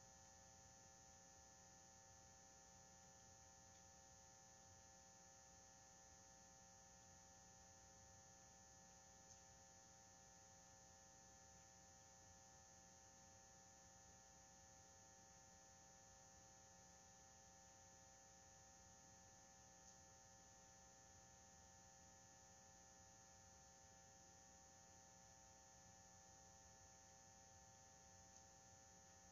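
Near silence: only a faint, steady electrical hum, with no drum hits.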